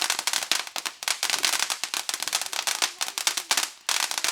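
A firework crackling: a dense, rapid run of sharp cracks, many a second, with a brief break shortly before the end before it starts again.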